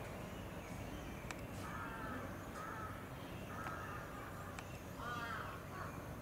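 A crow cawing, several short calls in a row, over a steady low background rumble, with a few faint sharp clicks between the calls.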